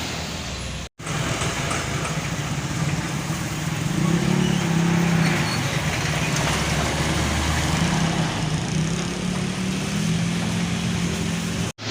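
Heavy truck engine running on the road with traffic noise around it, its low engine note wavering slightly. The sound cuts out briefly about a second in and again near the end.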